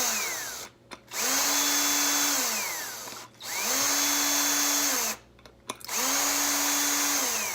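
Power drill-driver run in repeated bursts of about a second and a half, three full runs with short pauses between. Its motor whine rises in pitch as it spins up and drops as it stops, backing out the small screws of a hard drive's platter retaining ring.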